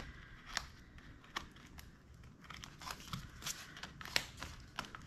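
Faint paper rustling and crinkling as sheets and a binder are handled, with scattered light clicks and taps.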